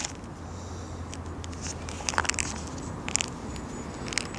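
Hands handling bait and tackle close to the microphone: a few small crackles and clicks, in clusters about two and three seconds in and once more near the end.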